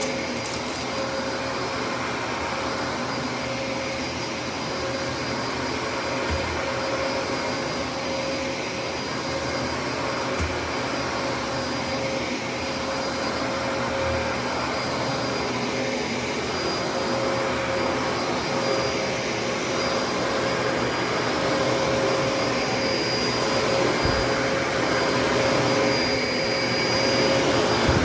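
Dyson DC33 upright vacuum cleaner running continuously, air rushing under a steady motor hum and a high whine, with a few faint low thumps. It gets a little louder near the end.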